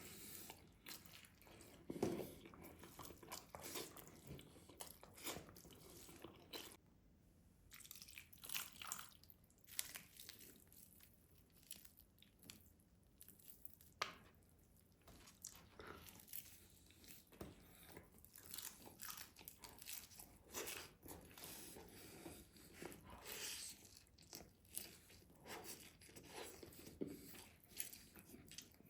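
Faint, close-up eating sounds: a person chewing and biting rice and meat, with many irregular small wet clicks and smacks of the mouth, a louder one about two seconds in.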